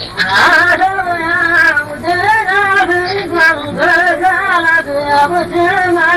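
Voices chanting a line of Nabati poetry in a drawn-out melody, the sung notes held long and wavering.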